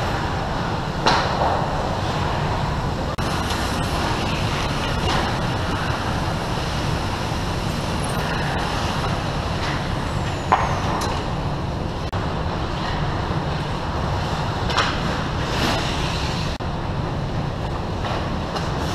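Ice rink sound during a hockey game: a steady low rumble with the hiss of skates on the ice, broken by sharp clacks of sticks and puck. The loudest clacks come about a second in and again about halfway through.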